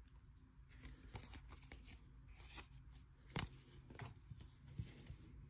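Faint handling of trading cards: soft rustles and a few short taps as cards are set down on a desk, the clearest tap about three and a half seconds in.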